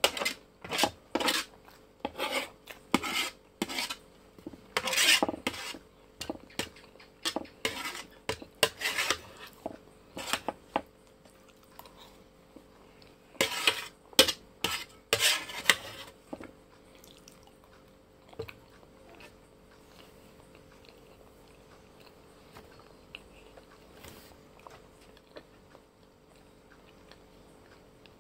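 Metal spoon scraping and clinking against a plate while scooping boiled egg, a quick run of strokes over the first half, then only a few faint clicks.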